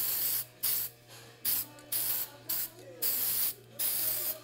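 Aerosol can of primer spraying in a series of short hissing bursts, each under a second, laying a light coat over a body-filler repair on a wheel.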